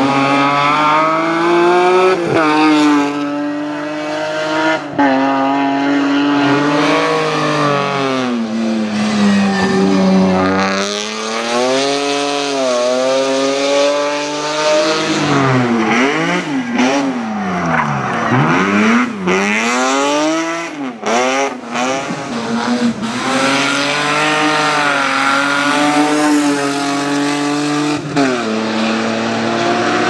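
BMW E30 and E36 race car engines revving hard, pitch climbing and dropping sharply again and again with gear changes and lifts off the throttle. Around the middle the revs swing up and down quickly as a car slides sideways, with tyre squeal.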